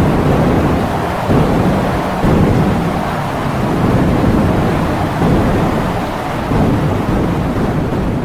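Heavy rain with strong wind, a dense continuous wash that is deepest in the low range, swelling and easing in gusts every second or so.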